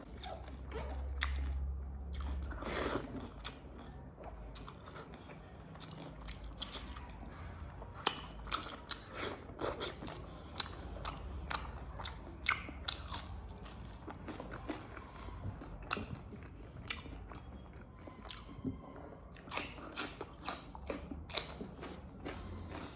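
A person chewing a mouthful of pork curry and rice, with irregular small smacks and clicks.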